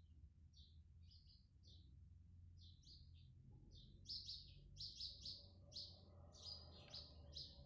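Small birds chirping faintly: short, quick chirps that come more often in the second half, over a faint low background hum.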